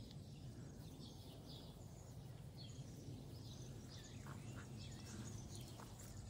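Faint outdoor ambience: small birds chirping now and then, a few more calls about four to five seconds in, over a low steady rumble.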